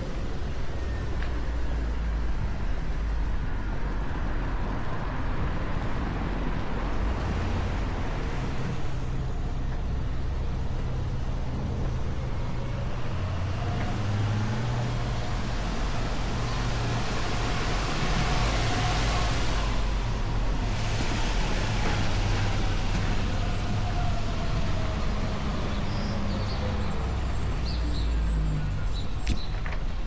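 Street traffic with a low rumble throughout; a passing vehicle's engine note rises and then falls, loudest a little past halfway.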